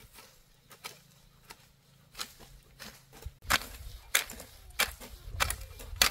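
Repeated sharp knocks, about three every two seconds, growing louder about halfway through with a low rumble underneath.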